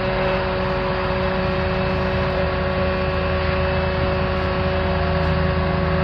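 Aerial ladder fire truck running as its ladder moves: a steady mechanical hum with a held whine over a low rumble.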